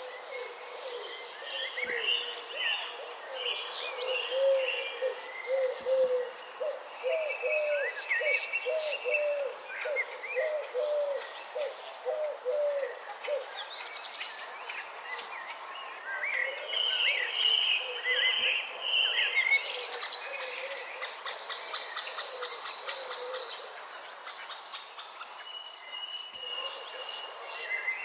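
Nature soundscape: a steady high-pitched insect chorus with several birds calling and chirping over it. In the middle comes a run of about a dozen short, low, evenly spaced calls.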